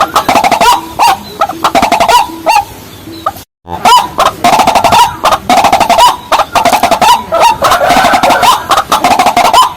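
Rails calling: a dense run of rapid, repeated clucking notes, cut by a brief silent gap about three and a half seconds in, then resuming.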